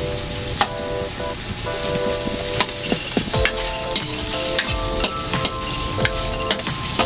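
Ground pork frying with garlic and onion in a stainless steel wok, sizzling steadily while a metal slotted spatula stirs it, scraping and knocking against the pan many times.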